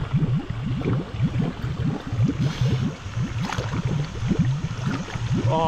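Water sloshing and splashing in irregular low surges, as a big carp is let go back into the water.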